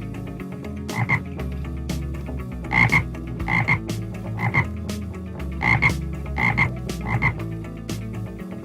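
A frog croaking over and over, seven short double croaks spaced about a second apart, over a steady low background hum.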